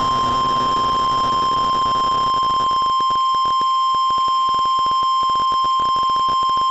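NOAA Weather Radio's 1050 Hz warning alarm tone: one steady, unbroken high beep over radio hiss that gives way to crackle partway through. It is the alert signal that comes before a tornado warning message.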